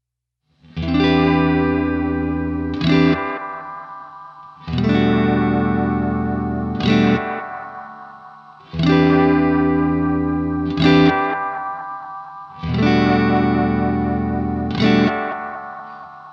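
Electric guitar played through a Walrus Audio ARP-87 delay pedal. After a moment of silence, a chord is struck and left to ring and fade, followed by a short second chord, and the pair repeats four times, about every four seconds.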